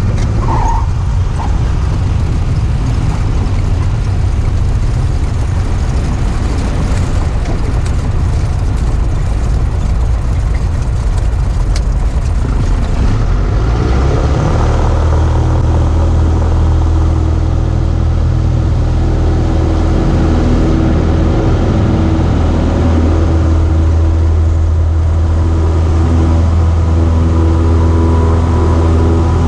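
Light single-engine plane's piston engine and propeller running, heard from inside the cockpit as it rolls along the runway. A steady drone that settles into an even low hum about halfway through.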